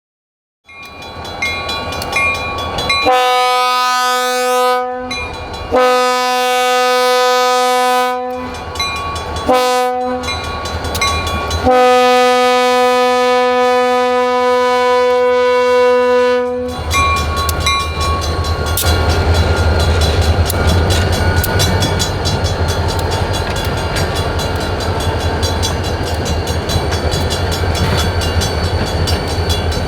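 A locomotive air horn sounds the grade-crossing signal: two long blasts, a short one, then a final long blast held about five seconds. After it the EMD GP40's turbocharged diesel engine drones low and steady as the freight train passes, with wheels clicking over the rail joints.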